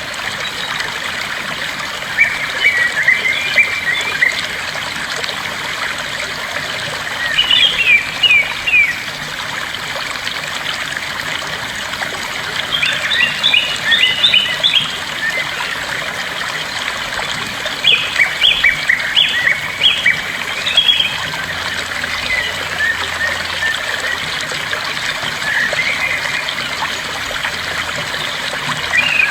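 Bird chirping sound effect, quick high chirps in short bouts every few seconds, over a steady trickle of running water.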